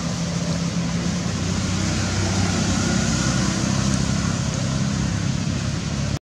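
Steady low droning hum over a wash of noise, its pitch shifting slightly, cutting off abruptly near the end.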